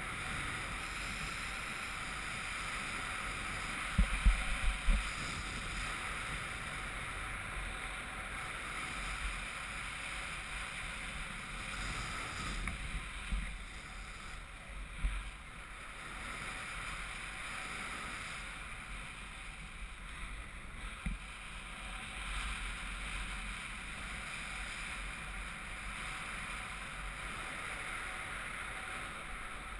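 Steady rush of air past a housed action camera on a paraglider in flight, with a cluster of low wind buffets on the microphone about four seconds in and a few more near the middle.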